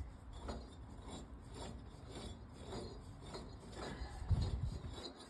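Reassembled lawnmower transmission being turned by hand, its gears and shafts giving a faint, irregular rasping as they mesh, with a low thump about four seconds in.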